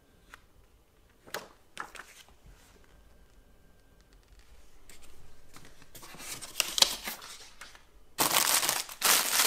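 Packaging being handled: a few light knocks and rustles of paper, then rustling that builds, and about eight seconds in a loud crinkling of a plastic bag being picked up.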